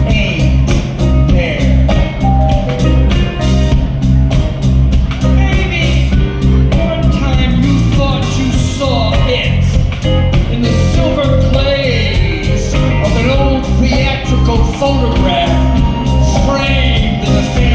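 Live rock band playing with a steady drum beat, bass and a melodic lead line.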